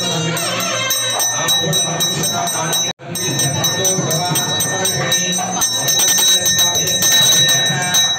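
Brass hand bell (puja ghanta) rung rapidly and continuously, its steady ringing tones over the clatter of the clapper, with voices and music underneath. The sound breaks off for an instant about three seconds in.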